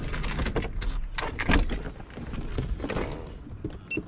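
Driver door of a Ford pickup truck being unlatched and swung open, with clicks, knocks and rustling from someone moving to climb out of the cab. The loudest thunk comes about a second and a half in.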